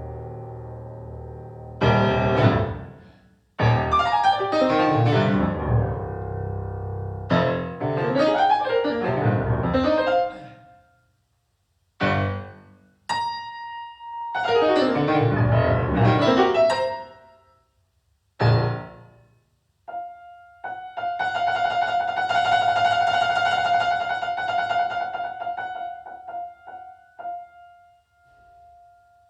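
Keyboard music: chords played in short phrases with pauses between them, then one long held note in the last third that fades out near the end.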